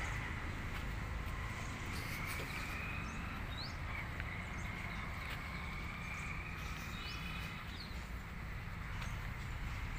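Outdoor ambience: birds give short rising chirps a few times over a steady low rumble, with a faint drawn-out tone that slowly rises in pitch in the background.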